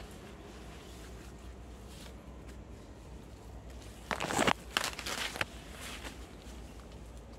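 A short cluster of rustling and crunching noises about four seconds in, three or four quick scrapes over a second and a half, over a faint steady low background.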